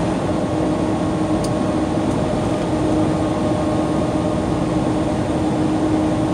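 Tractor-trailer truck running at highway speed, heard inside the cab: a steady drone of engine and road noise with a constant hum.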